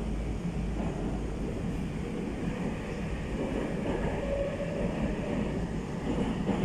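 Steady running noise heard inside a Moscow Metro 81-765/766/767 'Moskva' train car as it travels: a continuous rumble of wheels on rails and running gear, with a faint whine rising briefly about four seconds in.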